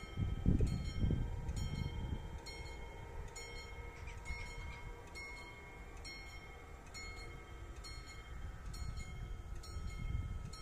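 Level-crossing warning bell ringing in a steady repeated strike, about three strokes every two seconds, while the crossing barriers come down. A low rumble underneath is loudest in the first couple of seconds.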